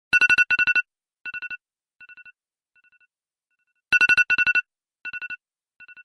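Electronic telephone ring: two quick, loud trilling rings, followed by fainter and fainter echoing repeats that die away. The whole ring pattern starts over about four seconds in.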